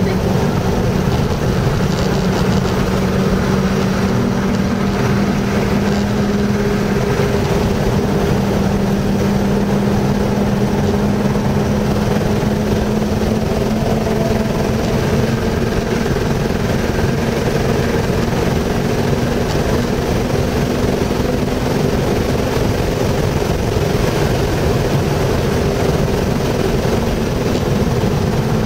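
Car engine and road noise heard from inside the cabin while driving at speed. The engine holds a steady pitch, fading somewhat in the last few seconds.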